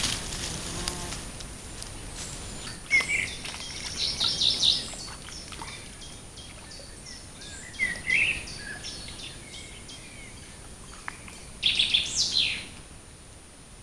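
Songbird calling: short phrases of chirps and whistles about three seconds in and again around eight seconds, then a louder phrase with falling notes near the end. A faint steady high-pitched tone runs underneath.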